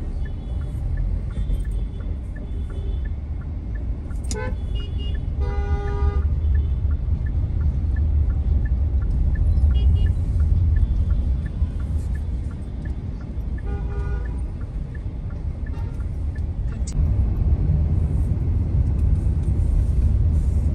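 Steady low road and engine rumble inside a moving Kia Carens diesel in city traffic, with vehicle horns honking: a long honk about six seconds in and a shorter one about fourteen seconds in.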